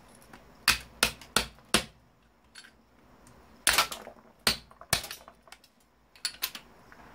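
Sharp clicks and knocks of hand tools on a small electric motor being taken apart to get at its brass part: four quick strikes about a second in, about four more around the middle, and two near the end.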